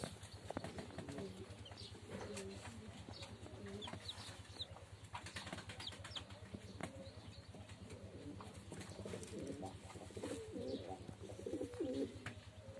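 Domestic pigeons cooing: low burbling calls on and off, heaviest near the end, with a few short high chirps a few seconds in.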